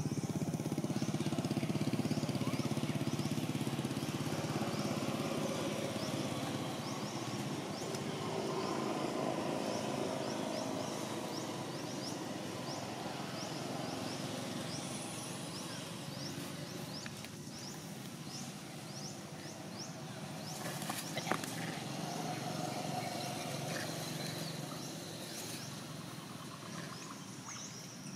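Outdoor ambience: a steady low drone of distant motor traffic, with faint high bird chirps throughout and a single sharp click about three-quarters of the way through.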